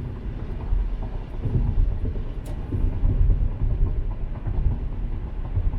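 Road noise inside a moving car: a steady low rumble of tyres and engine, with a single sharp click about halfway through.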